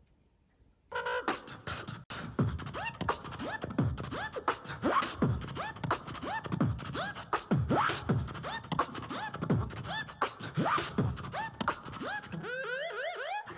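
Vocal beatbox beat: a steady rhythm of deep, falling-pitch thumps and sharp clicks. It starts about a second in and cuts off suddenly at the end.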